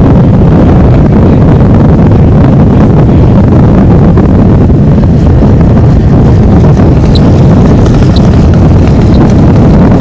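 Strong wind buffeting the microphone, a loud, steady low rumble that covers the distant sound of the model plane's engine.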